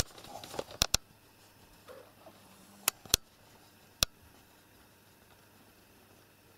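A few sharp, irregular clicks, two close together just before one second in, two around three seconds and one more about four seconds in, over faint rustling at the start.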